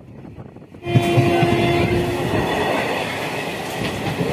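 A train running past close by, with a steady rumble of wheels on the track. Its horn sounds once, briefly, about a second in, at the moment the rumble suddenly begins.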